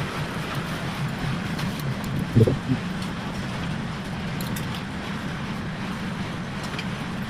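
A steady low mechanical hum under a wash of noise, with one short, louder sound about two and a half seconds in.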